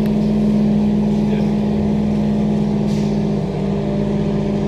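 Transperth A-series electric train running between stations, heard inside the passenger car: a steady electric hum holding one pitch over the low rumble of wheels on the rails.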